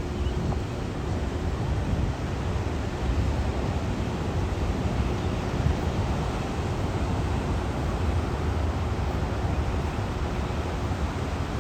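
Steady rushing noise of wind on the microphone over ocean surf, heaviest in a low rumble; no bird calls stand out.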